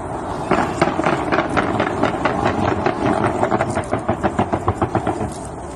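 Fireworks going off in a fast, even run of sharp pops, about seven or eight a second, starting about half a second in and stopping near the end.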